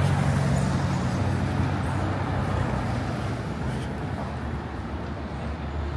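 City street traffic: a vehicle's engine running with a steady low hum, a little louder near the start, over a general haze of street noise.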